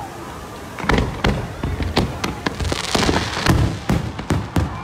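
Fireworks display: aerial shells bursting in a rapid barrage of bangs that starts about a second in.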